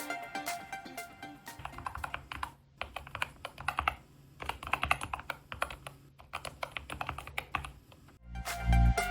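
Typing on a Keychron K2 HE magnetic-switch keyboard: a rapid run of keystroke clacks over background music, whose heavy bass beat comes in near the end.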